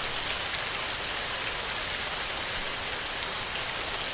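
Steady rain: an even hiss with faint, scattered taps of single drops.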